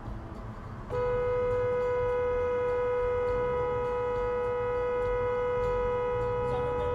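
Car horn held down in one long, unbroken blast, starting about a second in and holding a steady pitch, over the low rumble of the car in traffic.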